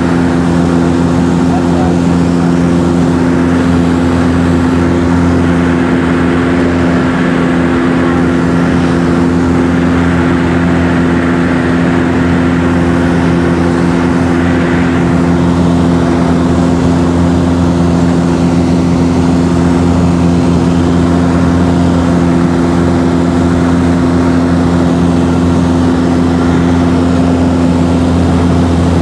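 Piston engine and propeller of a high-wing light aircraft droning steadily in flight, heard from inside the cabin: a loud, even hum made of several steady low tones over a rushing noise, with no change in pitch.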